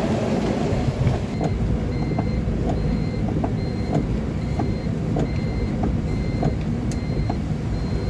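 Bus engine and road noise from inside the cabin. From about a second and a half in, a short high electronic beep repeats roughly every half second to a second.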